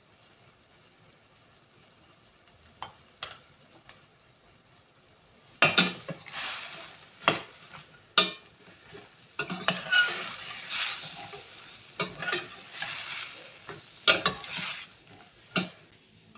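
Metal spatula scraping and knocking against a stainless steel pan while sugar snap peas, carrots and chicken are stir-fried, the food sizzling in bursts with each toss. The stirring starts about five seconds in. Before that there are only a couple of light clicks.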